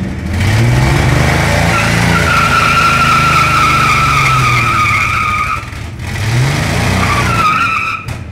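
1963 Chevy C10 pickup doing a burnout: the engine revs up and the rear tire spins and squeals in a steady high whine for a few seconds. The revs drop about six seconds in, then climb again with a second, shorter squeal near the end.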